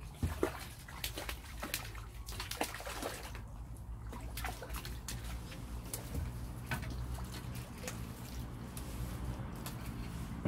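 Water splashing and dripping as a landed fish thrashes in a landing net at the water's edge: a run of irregular sharp splashes and drips, the loudest just under half a second in, over a low steady rumble.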